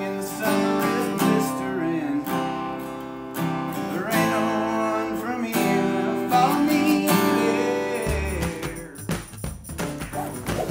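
A man strumming an acoustic guitar and singing a country-style song; the music breaks off about eight seconds in, giving way to a low rumble.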